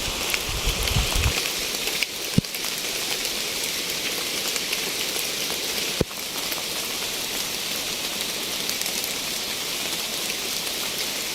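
Heavy rain falling steadily in a storm, a dense, even hiss. Wind buffets the microphone with a low rumble for the first second or so.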